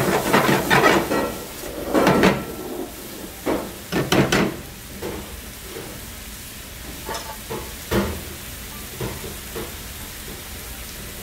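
Shrimp, onion and garlic frying in a nonstick frying pan. A metal spoon scrapes and stirs through them in several strokes over the first four seconds or so, then the pan sizzles more quietly with a few light knocks.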